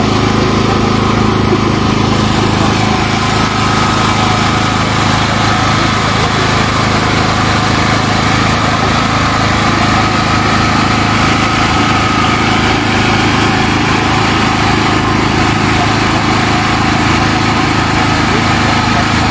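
Engine running steadily at an even idle, a constant low hum that never changes speed.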